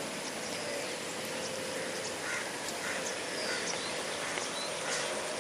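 Wetland birds calling over a steady hiss: a few short calls about halfway through, scattered high chirps, and one high whistle that falls in pitch.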